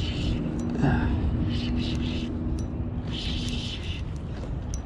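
Wind rumbling on the microphone over a steady low hum that fades out near the end, with a few faint clicks.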